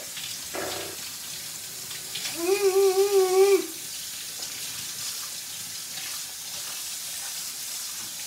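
Kitchen tap running into a stainless steel sink while dishes are scrubbed by hand. About two and a half seconds in, a loud, slightly wavering pitched tone holds for just over a second, then stops abruptly.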